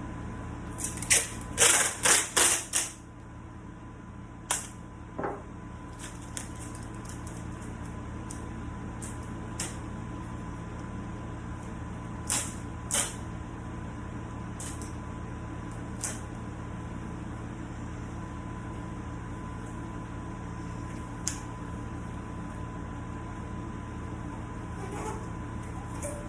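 Sharp clicks and knocks of handling, a quick run of about five in the first few seconds and then single ones every few seconds, over a steady machine hum.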